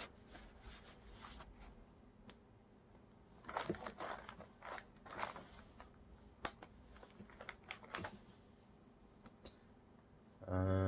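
Faint, scattered light clicks and rustles of an HDMI cable being handled and stretched out. Near the end comes a short, steady, low hum that is louder than the handling.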